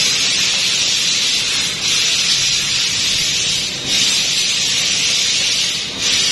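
CNC laser cutting machine cutting a steel speaker grille, giving a loud, steady hiss of gas that breaks off briefly about every two seconds.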